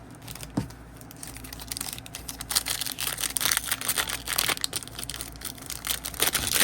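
Plastic wrapper of a trading-card pack crinkling as it is handled and torn open, starting about a second and a half in and going on as a dense crackle.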